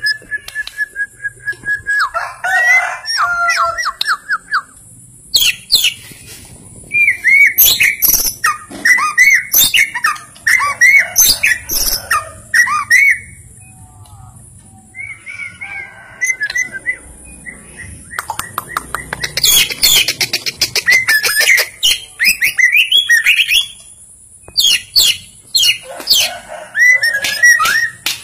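White-rumped shama (murai batu, Simeulue variety) singing loudly: varied phrases of rising and falling whistled notes and fast rattling runs, in bursts separated by short pauses.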